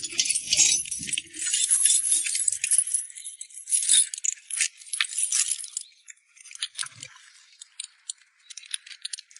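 Metal anti-skid chains rattling and clinking as they are handled to be fitted onto a tyre: dense jangling for about six seconds, then scattered single clinks.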